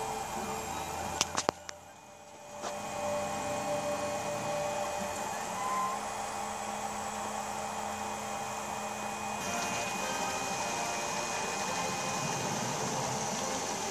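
Prusa Mendel i2 3D printer printing: its stepper motors whine at pitches that shift as the print head changes moves, over a steady hum. There are a few sharp clicks and a brief drop in level about a second and a half in.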